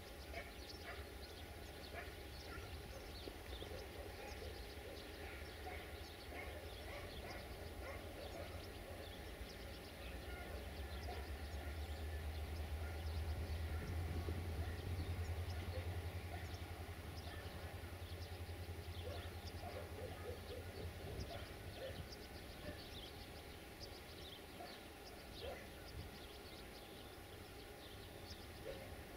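Distant diesel locomotive engine rumbling as its passenger train moves off. The low rumble swells for several seconds around the middle and fades again, with faint high chirps throughout.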